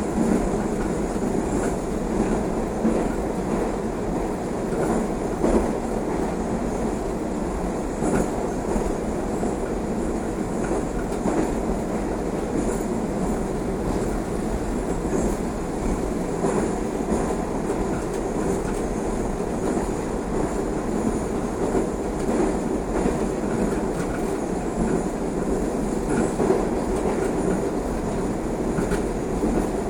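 Moscow metro 81-760A/761A/763A "Oka" train running at speed, heard from inside the car: a steady rumble of wheels on rail with scattered clicks.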